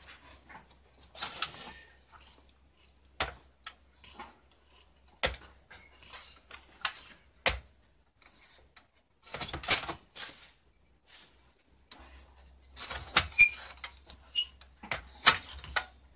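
Metal wire dog-crate door and its latch being worked by hand: scattered sharp clicks and knocks with rattling. About a second in there is a short rattle, then three strong single clicks about two seconds apart. Busier clattering comes about nine seconds in and again near the end.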